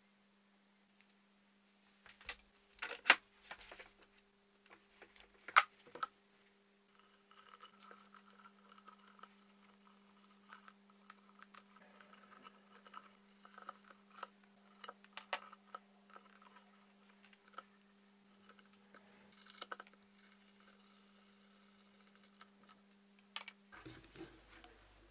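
Quiet handling sounds of twisted twine cord being worked by hand: a few sharp clicks and knocks in the first several seconds, then soft, scattered rustling. A steady low hum runs underneath.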